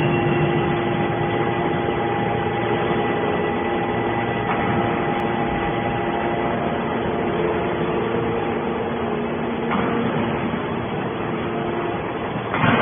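Hydraulic metal scrap baler running: a steady mechanical hum with several held tones, and a couple of faint knocks partway through.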